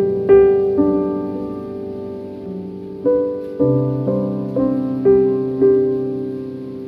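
Slow piano music: notes struck one after another, each left to ring and fade, with a longer held stretch about a second in.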